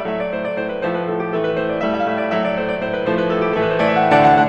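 Piano playing a Greek folk-inspired piece: sustained chords under a melody, swelling louder near the end.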